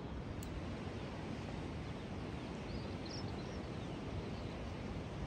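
Steady open-air background noise on a cliff top, with a few faint bird chirps about three seconds in.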